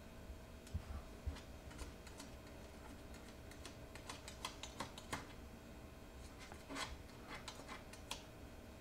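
Faint, irregular light clicks and taps, clustered in the middle and again near the end: a Shih Tzu puppy's claws and nose tapping against the glass of a mirror as he paws at his reflection.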